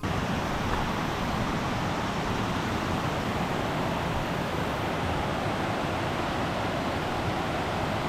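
Steady rushing of flowing river water, an even noise that stays at one level.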